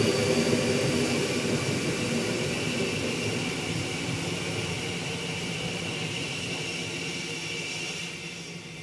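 F-15E Strike Eagle's twin jet engines at taxi power: a high whine over a rumble, growing steadily fainter as the jet taxis away.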